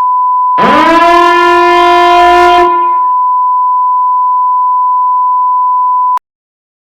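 A steady, high electronic tone, with a loud blaring horn-like tone layered over it about half a second in; the horn swoops up in pitch, holds for about two seconds and stops. The steady tone runs on alone and cuts off abruptly about six seconds in.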